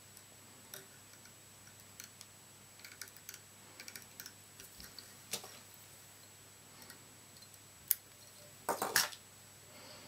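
Faint, scattered ticks and clicks of fingers working fly-tying thread and a starling hackle feather on a tiny jig hook in a vise, with a sharp click about eight seconds in and a short, louder run of clicks about a second later.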